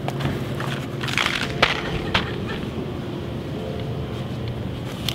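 Candy boxes and bags rustling and clattering as they are handled on a store shelf, with a few sharp crinkles in the first couple of seconds, over a steady low hum.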